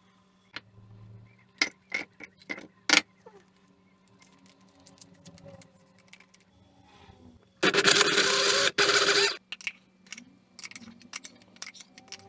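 A few sharp knocks and clicks, then an electric blender running in a short burst of about a second and a half with a brief break, crushing frozen banana and frozen red berries into ice cream.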